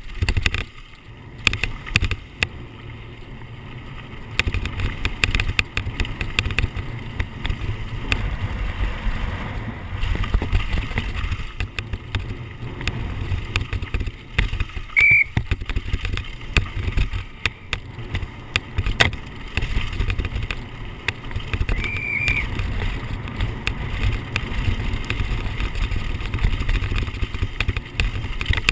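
Downhill mountain bike running fast down a rough dirt trail, heard from an onboard camera: wind rumbling on the microphone with constant rattling and knocking as the bike hits bumps. Two brief high squeaks cut in around the middle.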